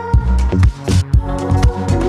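Background electronic dance music with a steady thumping beat.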